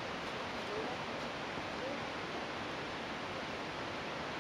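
Steady, even rushing background noise outdoors, with faint voices in the distance about a second in.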